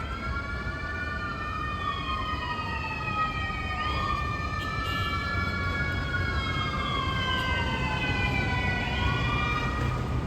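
Emergency vehicle siren on a slow wail, its pitch sweeping up and down about every five seconds, over a low steady rumble.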